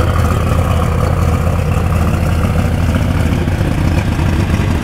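Heavy engine of a super stock pulling tractor idling steadily, a constant low hum.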